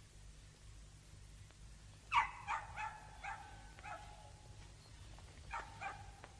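A dog barking: a quick run of about five sharp barks starting about two seconds in, then two more near the end.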